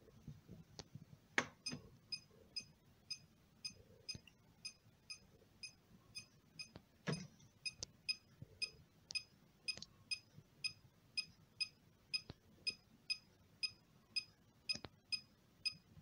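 GQ EMF-390 meter's beeper sounding short, high beeps at a steady rate of about two a second. There are two louder knocks of the meter being handled, one about a second and a half in and one near the middle.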